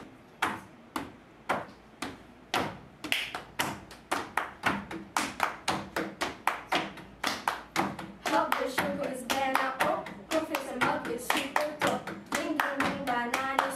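Body percussion of hand claps and hands slapping a classroom table, beating out a rhythm that starts at about two beats a second and grows faster and denser. From about eight seconds in, voices join, singing a tune over the beat.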